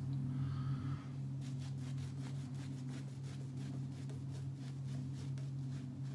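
Razorock Big Bruce shaving brush with a Plissoft synthetic knot swishing shaving soap lather over the face in quick, even strokes, about four a second, starting about a second in. A steady low hum runs underneath.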